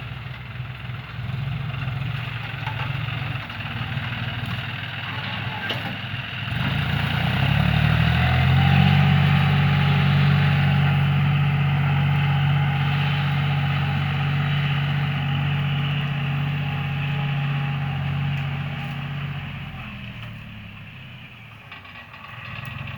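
John Deere 5045D tractor's three-cylinder diesel engine idling, then revved up about six seconds in. It holds a steady higher speed for about ten seconds and eases back down toward idle near the end.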